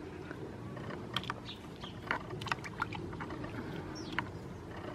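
Faint outdoor background: a low steady hum with scattered light clicks of the camera being handled, and a few short bird chirps, one a falling call about four seconds in.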